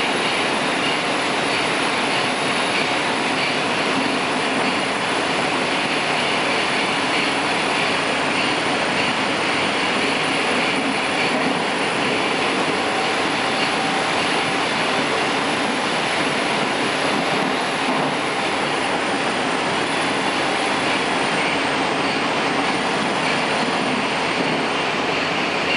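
Steady running noise inside a moving 81-760/761 'Oka' metro car: wheels on the rails and air rushing past in the tunnel, with a faint high whine that wavers slightly in pitch.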